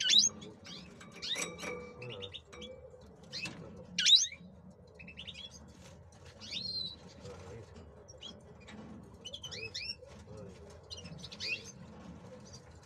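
Male European goldfinch singing: a run of quick, high twittering notes that sweep up and down, in short phrases with brief gaps. The loudest phrases come near the start and about four seconds in.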